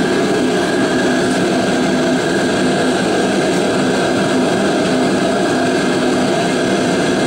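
Portable cylindrical shop heater running with a steady, unbroken noise and hum.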